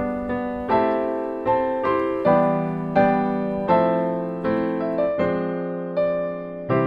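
Background music: a slow, gentle piano piece, a note or chord struck about every three-quarters of a second, each ringing and fading.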